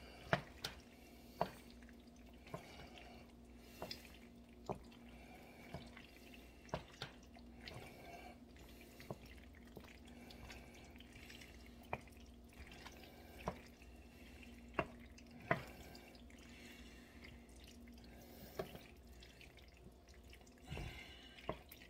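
Metal tongs and a wooden spoon clicking and knocking irregularly against a pan as penne is tossed in tomato sauce, with a faint steady hum underneath.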